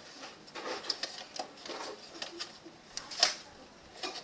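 Sharpie marker scratching across paper in short, irregular strokes, with a few light taps.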